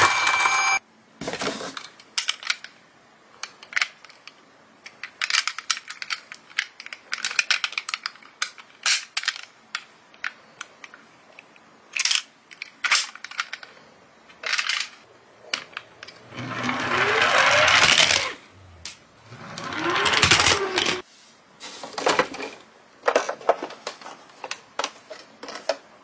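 A toy police car's electronic siren cuts off just under a second in. Then come scattered clicks, taps and handling noises as toy vehicles are picked up and moved in cardboard boxes, with two longer rustling, scraping spells in the second half.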